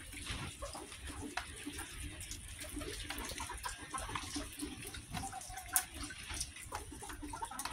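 Backyard chickens pecking at warm, wet oatmeal in a black feed bowl: a steady patter of quick beak taps and wet clicks.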